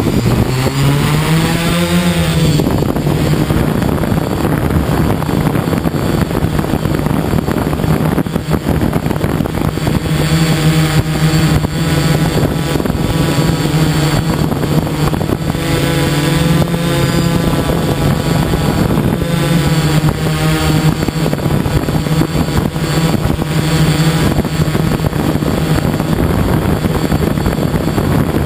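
DJI F550 hexacopter's six electric motors and freshly balanced propellers spinning up, rising in pitch over the first couple of seconds as it lifts off, then a steady buzzing hum while it hovers, its pitch slowly wavering and beating. Heard up close from a camera mounted on the frame.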